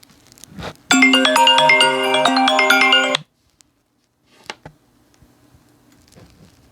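Smartphone incoming-call ringtone playing a bright melodic tune for about two seconds, then cutting off suddenly, followed by a faint click.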